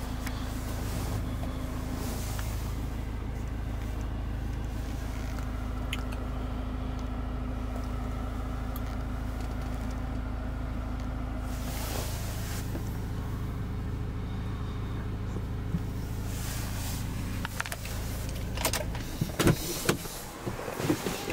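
Ford Ranger pickup's engine idling steadily, then the steady hum dies away about three-quarters of the way through, followed by a few sharp clicks and knocks.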